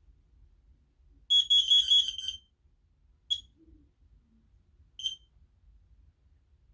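Smoke alarm piezo horns sounding a quick run of shrill beeps lasting about a second, then two single short chirps of the same pitch a little under two seconds apart.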